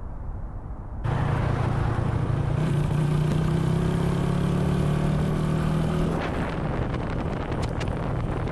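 A motorbike engine running steadily while riding, starting abruptly about a second in after a faint low rumble, its pitch rising slightly as it pulls. From about six seconds it gives way to wind rushing on the microphone, with a few sharp clicks.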